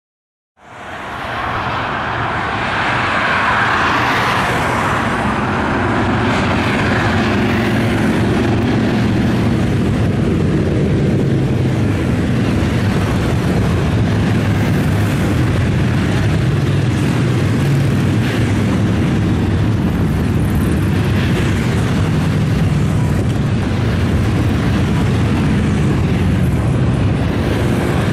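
A long procession of motorcycles, mostly Harley-Davidson V-twin cruisers, riding past together in a dense, continuous engine drone mixed with road noise. The sound fades in about half a second in, swells over the next couple of seconds, then holds steady.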